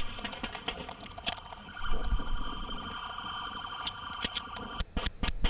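Rapid gunfire, several shots close together at the start and another quick volley near the end. In between, from about two seconds in, a steady, unwavering alarm-like electronic tone holds for about three seconds.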